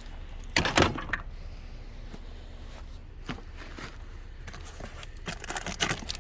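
Odds and ends being handled while rummaging through boxes: a loud clunk and rattle just over half a second in, a single knock about three seconds in, and a run of quick clattering near the end.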